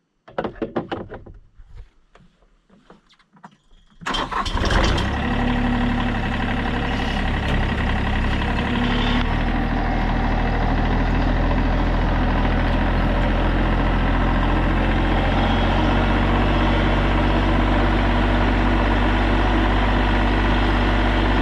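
A few clunks and clicks, then about four seconds in a tractor engine starts and settles into a steady idle.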